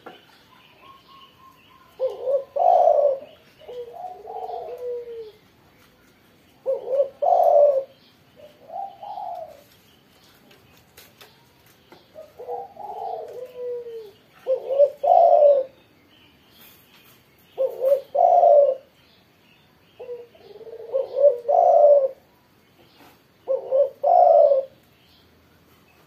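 Spotted dove cooing in full song: repeated phrases of several deep coo notes, the first starting about two seconds in, each following every few seconds with short gaps between.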